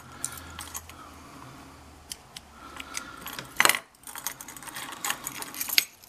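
Metal clinking and jingling of an old brass padlock and its brass chain being handled, freshly picked open with the pick tools still in the keyway. Scattered small clicks, the loudest clink about three and a half seconds in and a quick run of clicks near the end.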